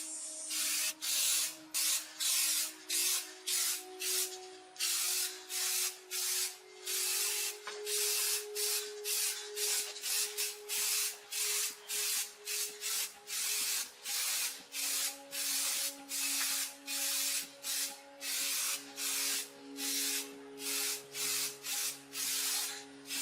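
Hand sanding: rhythmic rasping back-and-forth strokes, about two a second, with faint background music underneath.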